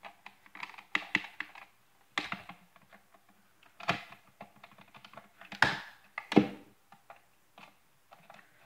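Irregular plastic clicks and light knocks as a radio-control transmitter's plastic case and parts are handled during teardown, with three louder knocks in the second half.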